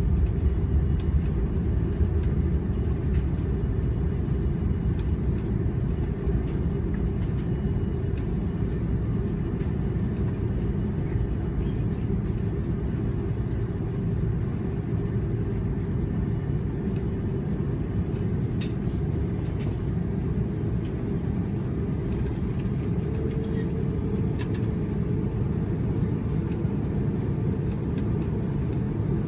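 Airbus A330 cabin noise during takeoff: a steady, deep rumble of the engines and airflow, with scattered light clicks and rattles from the cabin fittings.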